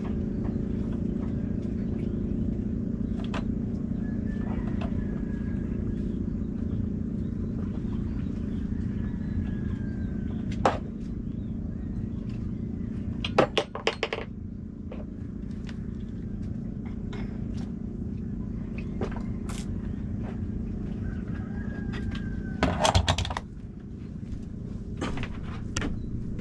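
Boat engine running steadily with a constant drone. A few sharp knocks break in, loudest in two short clusters around the middle and near the end.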